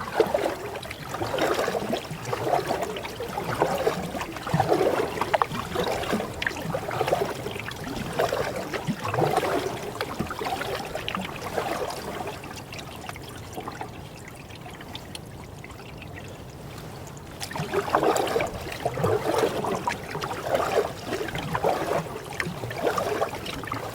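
Canoe paddle strokes: the blade dips and swishes through the water, and water trickles off it, about one stroke a second. The strokes stop for a few seconds in the middle and then resume.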